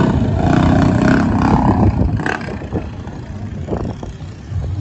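Mini bike's small engine running as the bike passes close by, then growing fainter after about two and a half seconds as it moves away, and louder again near the end.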